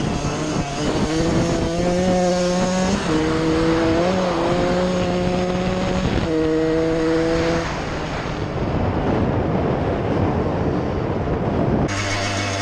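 1999 Suzuki RM125 two-stroke single-cylinder engine running at high revs in held stretches with brief breaks, then off the throttle and rougher. Just before the end it switches abruptly to a lower steady idle.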